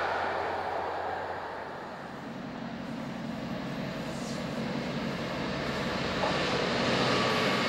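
An approaching Class 66 diesel freight locomotive's two-stroke V12 engine drone, growing louder after a dip about two seconds in as the train nears and draws level.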